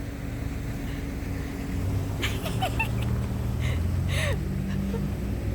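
A motor vehicle's engine running steadily as a low hum that grows a little louder about two seconds in, with a few short squeaky sounds and a brief hiss over it.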